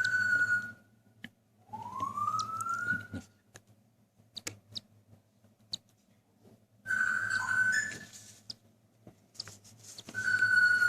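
Cockatiel chick giving drawn-out, whistle-like food-begging calls, four in all, one rising in pitch, with small clicks between them.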